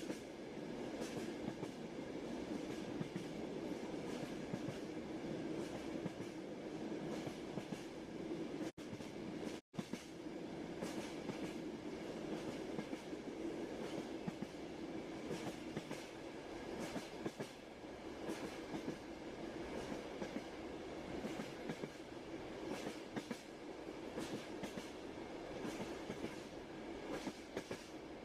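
Train carriage running along the rails: a steady rumble with repeated clicks of the wheels over rail joints. The sound cuts out briefly twice about nine seconds in.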